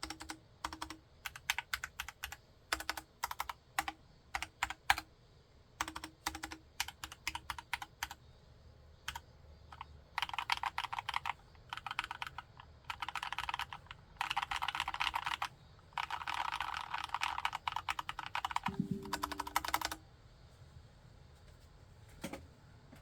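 Mechanical keyboard with tactile Gateron Brown switches in a Cox CA106 CNC aluminium case being typed on: separate keystrokes for the first several seconds, then fast runs of continuous typing from about ten seconds in that stop near twenty seconds.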